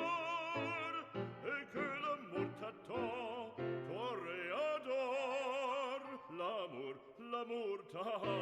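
Background music: a classical piece with an operatic singing voice, its pitch wavering in a wide vibrato over sustained accompaniment.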